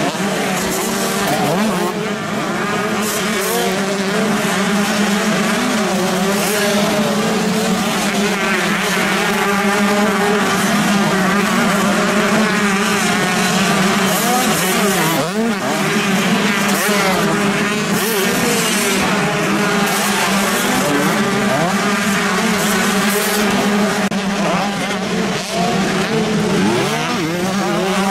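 A pack of 125 cc two-stroke motocross bikes racing, several engines at once revving up and down over each other as riders take the jumps and bends.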